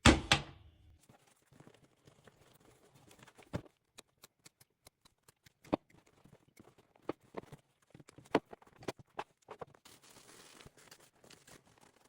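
A vintage leather baseball glove being handled during restoration: two loud knocks at the start, then scattered clicks, taps and rustles of leather and lacing, with a short soft hiss about ten seconds in.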